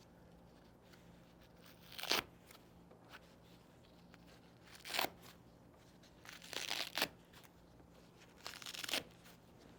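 Velcro hook-and-loop straps of a leg compression wrap being pulled open, several short ripping tears a second or more apart.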